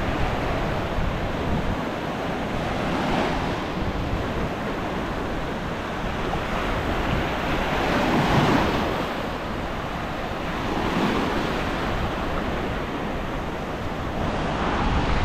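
Sea surf washing onto the beach, with wind on the microphone; the wash swells louder a few times.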